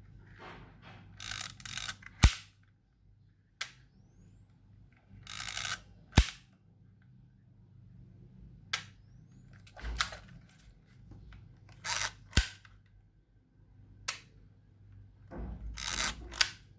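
Yashica MF-2 compact film camera's flash charging with a thin high whine that cuts out and glides back up after each firing, between sharp clicks of the shutter and flash going off, plus short rasping stretches of the film being wound on.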